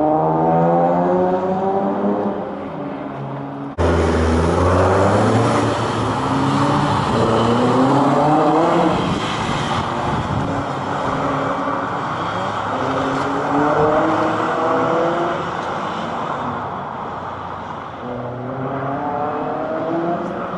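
Car engines accelerating hard as vehicles speed past one after another, each rising in pitch as it revs up, several times over.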